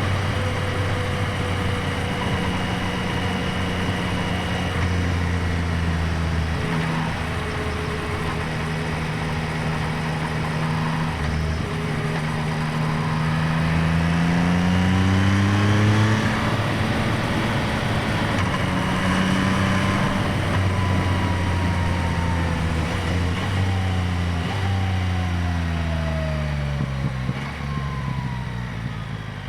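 2025 Yamaha MT-09's 890 cc inline three-cylinder engine running, close-miked at the airbox intake and the exhaust. It holds steady revs, climbs in pitch about halfway through, drops sharply, then rises once more and falls away slowly near the end.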